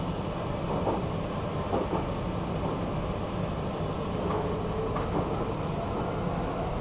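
Stockholm metro train running, heard from inside the carriage: a steady rumble with a few short, sharp clacks from the wheels on the track.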